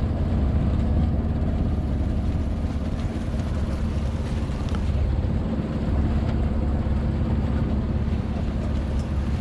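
A sailboat's inboard engine running steadily under way, a low, even rumble.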